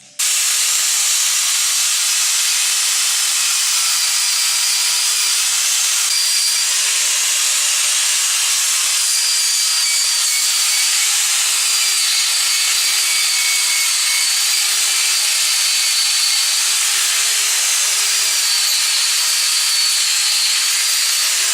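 Abrasive power tool stripping paint off a metal part: a loud, steady rasping hiss with a motor tone that wavers slightly as it is pressed against the work.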